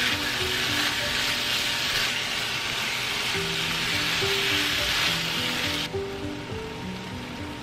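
Ground beef and tomato sauce sizzling in a frying pan as it is stirred with a wooden spatula; the sizzle cuts off suddenly about six seconds in. A light background melody plays throughout.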